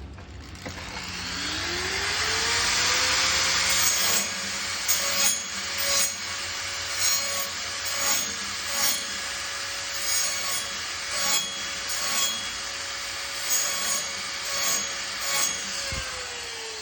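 A bandsaw-mill blade being hand-sharpened on the mill. A small motor spins up over the first two seconds and runs steadily, with a continuous rasping and louder strokes a little more than once a second as the teeth are worked. The motor winds down near the end.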